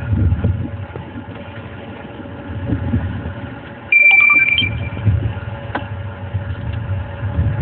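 Steady low rumble of a vehicle engine running. About four seconds in, a loud, high electronic beep sounds for under a second.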